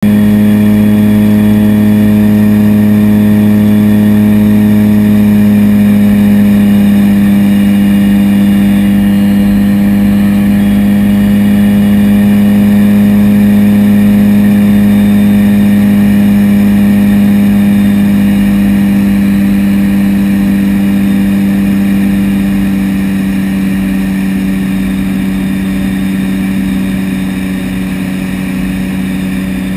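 Seaplane's propeller engines droning steadily, heard inside the cockpit: a loud, even hum with a low pitched tone, easing slightly near the end.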